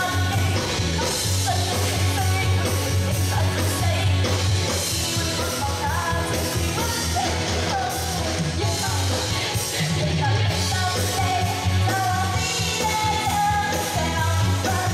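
Live band and singers performing an upbeat pop song through loudspeakers: a steady, heavy bass-and-drum beat with vocals sung into microphones over it.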